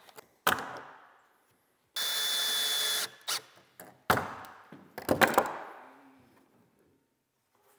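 Cordless drill-driver driving a pocket-hole screw into composite window trim: one steady run with a high whine, about a second long, starting about two seconds in. Sharp knocks and clatters around it, the loudest cluster about five seconds in.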